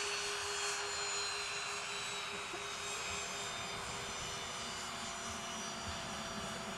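Cessna Citation CJ2 business jet's twin turbofan engines running with a steady whine. Several high thin tones drift slowly down in pitch over a constant lower hum.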